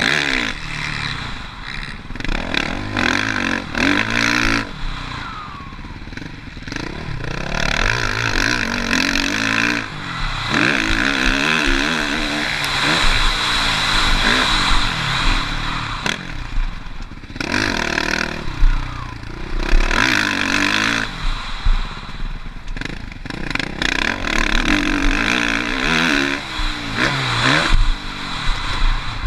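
Suzuki RM-Z450 four-stroke motocross bike being ridden hard: the engine revs rise and fall again and again as the rider throttles on and off.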